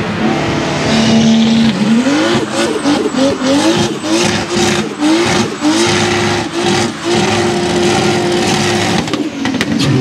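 Mercedes-Benz W202 C-Class doing a burnout: the engine revs climb, rise and fall in quick pulses about twice a second, then hold high for about two seconds while the rear tyres spin and squeal, and drop near the end.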